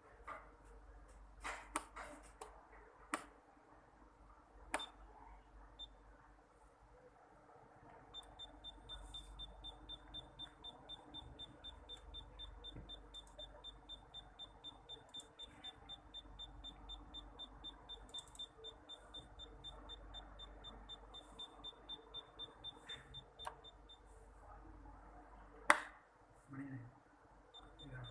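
Kyoritsu 3125 insulation tester's buzzer giving short high beeps, about three a second, for some fifteen seconds from about eight seconds in. This is the beep the tester gives while its test voltage is applied. Several sharp clicks come in the first few seconds, and there is one loud click near the end.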